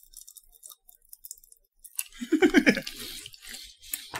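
Pop Rocks popping candy crackling and fizzing in the mouth: faint scattered pops at first, then from about two seconds in a dense, louder crackle, together with a brief vocal sound from the eater.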